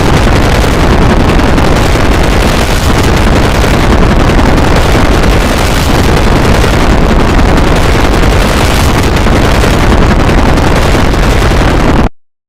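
Emergency alert alarm tone so heavily distorted and clipped that it comes out as a continuous, very loud, harsh noise. It cuts off suddenly near the end.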